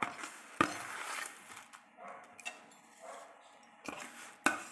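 A few sharp clinks of a utensil and plate against a steel pot as fried vermicelli is dropped into just-boiled milk, with a short rustle after the first clink. Two more clinks come near the end.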